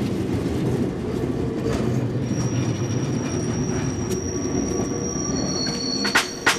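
Train running with a steady low rumble, and thin high wheel squeals coming in about two seconds in and holding on. A few sharp clicks near the end.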